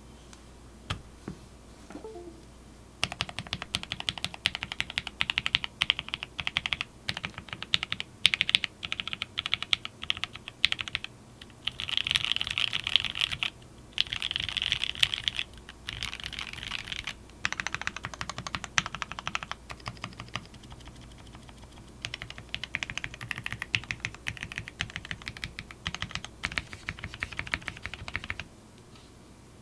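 Custom 60% mechanical keyboard with lubed Queen linear switches, GMK doubleshot ABS keycaps and a polycarbonate plate, typed on quickly in runs of key clacks with a few short pauses. It starts after a couple of lone keystrokes and stops shortly before the end.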